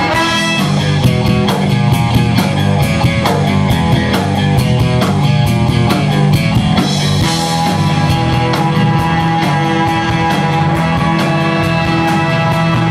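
Live rock band with horns playing: electric guitars, bass and drum kit with a steady beat, and trumpet and saxophone.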